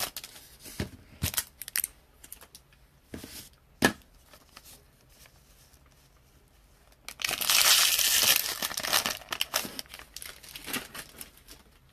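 Wrapper of a trading-card box topper being torn open and crinkled. Scattered crinkles and one sharp click come first, then the main tearing about seven seconds in, lasting about two seconds, followed by a few softer crinkles.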